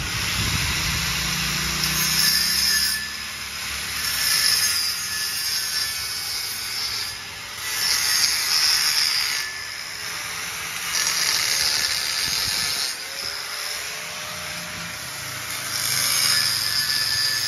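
Electric angle grinder grinding a weld on a steel pipe, with sparks, between TIG finishing passes. The grinding comes in passes of a second or two, louder and higher-pitched as the disc bites into the metal and easing as it is lifted.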